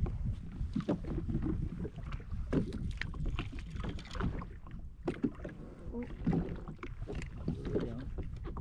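Water slapping against a drifting jet ski's hull, with many irregular knocks and clatter from gear being handled on board.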